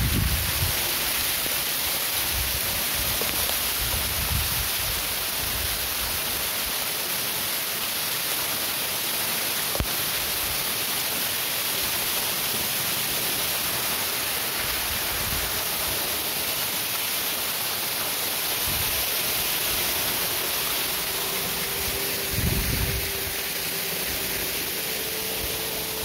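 Waterfall close by: water streaming down a rock face, a steady, even rush.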